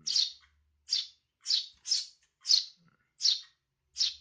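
Young Eurasian tree sparrows chirping over and over: about seven short, high chirps, each falling quickly in pitch, spaced roughly half a second apart.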